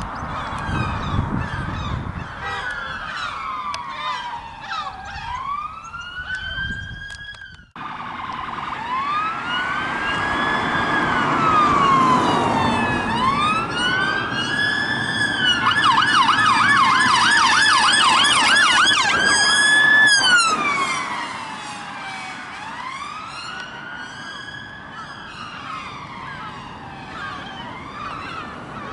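Emergency-vehicle sirens on responding police vehicles, wailing up and down with two or more sounding at once. They switch to a fast yelp for a few seconds around the middle, where they are loudest. The sound breaks off briefly about eight seconds in.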